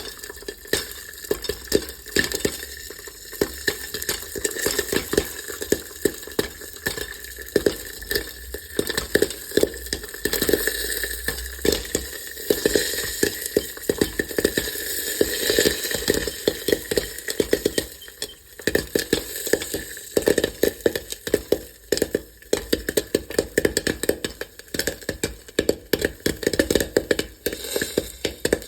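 Popcorn kernels popping: many sharp, irregular pops over a steady sizzle, crowding together around the middle and coming more spaced out near the end.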